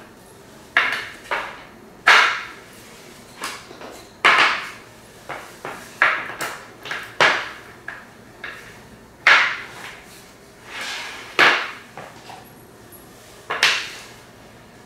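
Rollerblade-style chair casters being pushed into the sockets of a plastic five-star chair base: about fifteen sharp clicks and knocks at irregular intervals.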